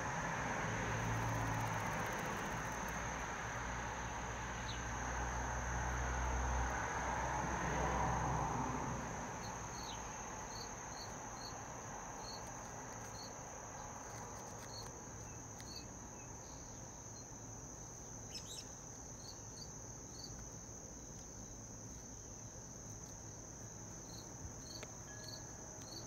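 Steady high-pitched drone of an outdoor insect chorus. A low rumble swells and fades away over the first nine seconds, and short high chirps come at irregular intervals from about ten seconds in.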